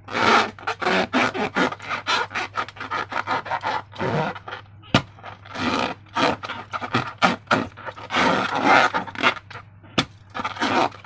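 Rubber balloons and slime being worked by hand: quick, uneven scraping and rubbing strokes, some short and sharp, coming in dense bursts.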